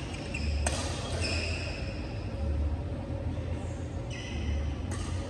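Badminton rally: sharp racket strikes on the shuttlecock, one about a second in and another near the end, with sneakers squeaking on the court floor in between, over a low rumble.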